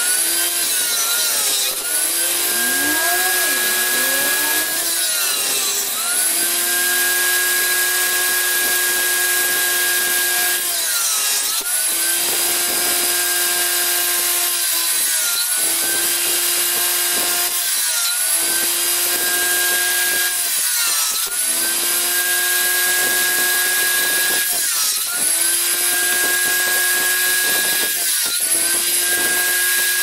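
Table saw starting up and ripping thin strips off a wooden board. The blade's running pitch sags each time a cut loads it and then recovers, about every three to four seconds.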